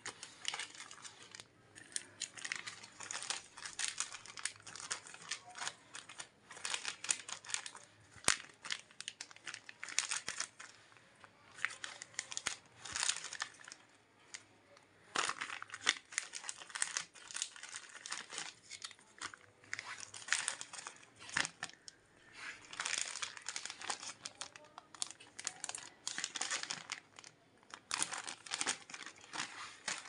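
Clear plastic bags crinkling and rustling as hands handle them and press them down, in irregular crackly bursts with a couple of short pauses.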